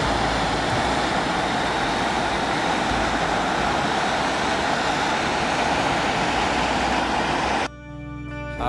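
A loud, steady rushing noise that cuts off abruptly near the end, where music begins.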